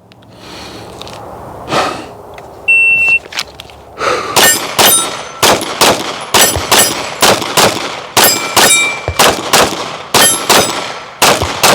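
Shot timer beeps once, and about a second later a 9mm Glock 45 pistol fires a rapid string of shots, mostly in quick pairs, for about nine seconds, with steel targets ringing between the shots.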